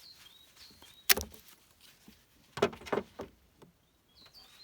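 Rubber fuel hose being cut to length: one sharp snap about a second in, then a quick cluster of rougher cutting strokes a second and a half later. Birds chirp faintly near the end.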